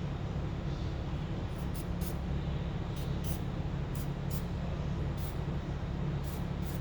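Hand ratchet being worked in short strokes, with paired high clicks about once a second, over a steady low hum.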